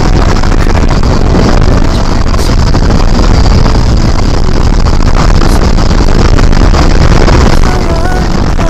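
Loud, steady wind rush and buffeting on the microphone of a camera mounted on a hang glider in flight.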